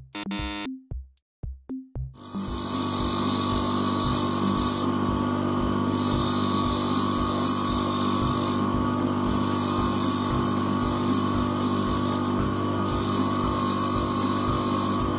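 A grinder's wheel running steadily from about two seconds in, with the hiss of a 3 mm high-speed-steel drill bit's tip being ground against it, the grit noise shifting as the bit is moved; the tip is being ground into a plain cone with no cutting lip or relief angle, the wrong way to sharpen.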